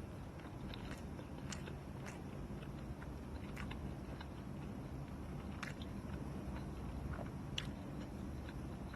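A person chewing and biting a breakfast wrap with chicken sausage close to the microphone, with irregular wet mouth clicks, over a steady low hum.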